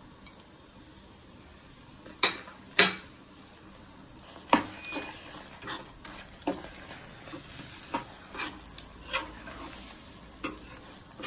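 A steel spatula stirs thick sweet potato and jaggery halwa in a nonstick pan, mixing in fried cashews. It knocks and scrapes against the pan: a few sharp knocks about two and three seconds in, the loudest near three seconds, then a run of lighter taps and scrapes.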